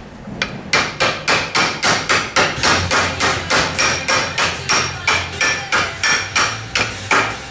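Small metal-headed hammer tapping the resealed gland of a hydraulic cylinder down into its barrel: quick, even metal-on-metal strikes, about three to four a second, each with a short ring.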